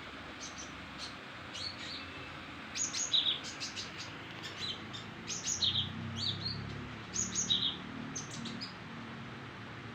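White-rumped shama (murai batu) singing, repeating a short phrase of high sharp chirps that drop to a lower note, every second or two.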